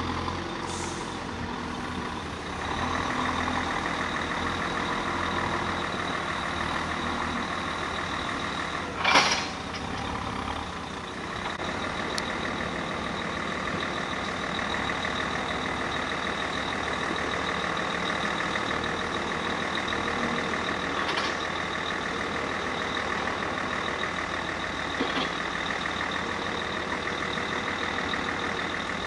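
Mercedes-Benz Actros road-rail truck running on the track, its diesel engine going steadily with a steady high-pitched tone over it. A short, loud burst about nine seconds in.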